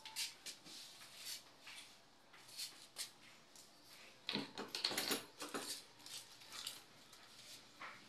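Scattered light clicks and taps of hand work on a door lockset, with a busier run of knocks and rattles between about four and six seconds in.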